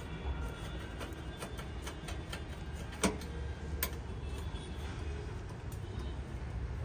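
Steady low background rumble with scattered light ticks, and two sharper clicks a little past the middle.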